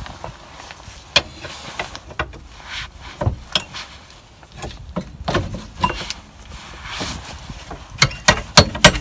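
Scattered metal clicks and knocks from work on a car's rear brake caliper: the caliper is handled and a long bar levers at it. A quick run of louder, sharper knocks comes near the end.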